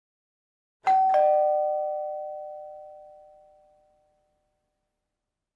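Two-note ding-dong doorbell chime: a higher tone struck about a second in, then a lower one a moment later, both ringing and fading away over about three seconds.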